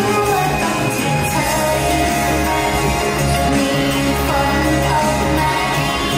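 A woman singing live into a handheld microphone over a steady instrumental accompaniment, a Thai pop song.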